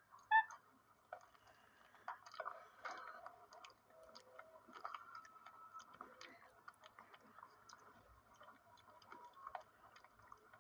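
Capuchin monkey eating a mushy banana: faint wet chewing and smacking with many small clicks. A brief high note sounds about half a second in.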